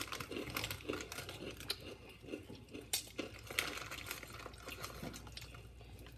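Close-up eating noises: wet chewing and smacking on a chicken wing, with scattered sharp clicks and crinkles from a snack bag being handled, over a low steady hum.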